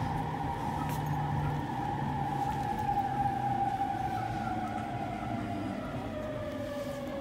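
Running sound inside an E231 series electric train with renewed traction equipment: the whine of the traction motors, several tones falling slowly in pitch as the train slows, over the low rumble of the running gear.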